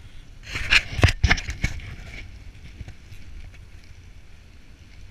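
Wooden dog sled gliding over snow: a steady rumble and hiss from the runners, with a burst of knocks and scraping about a second in.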